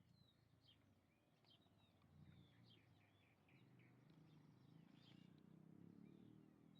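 Faint chirping of small birds: many short, quick chirps and calls repeated throughout, over a low rumble that swells from about two seconds in.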